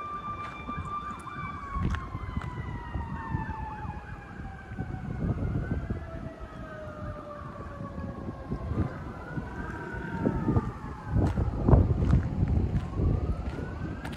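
Emergency vehicle sirens: one steady tone that slowly drops in pitch while another wails up and down, repeating. Wind rumbles on the microphone underneath, loudest gusts near the end.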